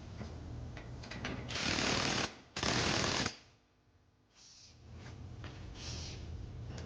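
Cordless impact wrench hammering in two short bursts, one about a second and a half in and one just after, tightening a crossmember mounting bolt.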